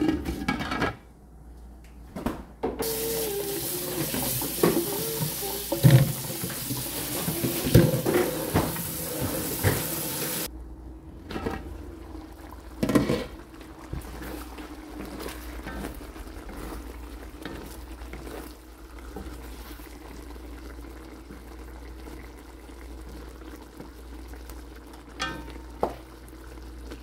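A kitchen tap runs for about eight seconds, starting a few seconds in and stopping suddenly. Then a pot simmers more quietly, with a few knocks of metal and a wooden spatula against the wok.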